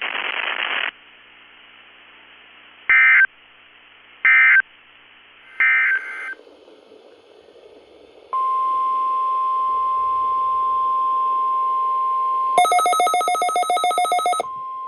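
Three short bursts of Emergency Alert System (SAME) header data, about a second and a half apart, then the steady single-pitch NOAA Weather Radio warning alarm tone. A harsh, buzzy stack of pulsing tones cuts over the alarm tone for about two seconds near the end.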